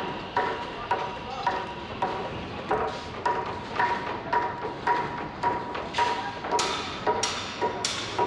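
Steady, evenly spaced knocking, about two sharp knocks a second, each with a brief ringing tone; the last few knocks are louder and brighter.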